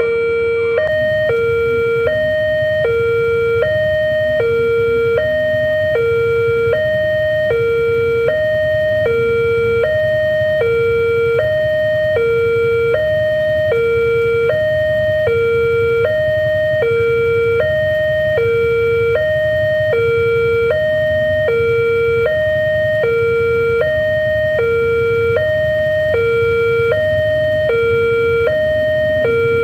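Railway level-crossing alarm sounding continuously, a high and a lower electronic tone alternating evenly, each held about half a second. It is the warning that the gates are down and a train is approaching.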